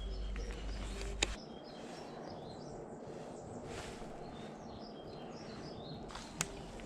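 Small birds chirping faintly over a steady outdoor hiss, with a sharp click about a second in and another near the end.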